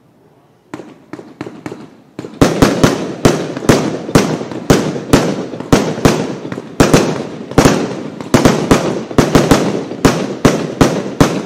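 A Worlds Toughest Fireworks 'Shocking!' firework cake (multi-shot battery) firing shot after shot. It starts with a few softer pops, then from about two and a half seconds a steady run of loud bangs, two to three a second, each with a short ringing tail.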